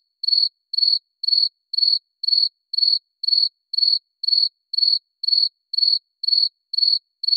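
Stock cricket-chirp sound effect: a single high chirp repeated evenly about twice a second over dead silence, the comic 'crickets' cue for an awkward pause.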